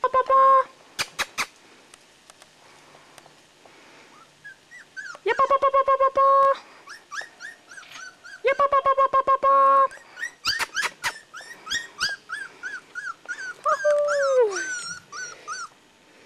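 Border Collie puppy crying and yelping: three loud held cries, then a quick run of short high yips, with a long falling whine near the end.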